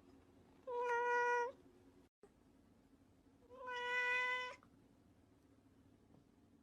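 A domestic cat meowing twice, each meow a little under a second long and held steady in pitch.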